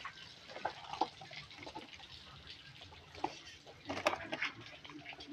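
Live fish flapping and slapping in a wet plastic crate, with scattered short knocks and splashes and a louder cluster of knocks about four seconds in as the crate is lifted.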